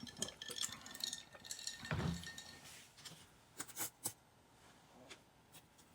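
Light clicks and clinks of small hard objects being handled, with a soft thump about two seconds in and a few sharper clicks a little later.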